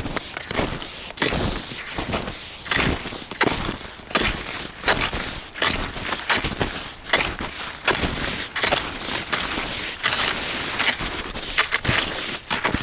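Touring skis and poles crunching and swishing through snow at a steady walking pace, about two strokes a second.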